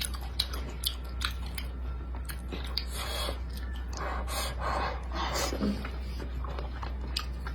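A person chewing and eating with the mouth close to the microphone: soft wet mouth sounds and small clicks.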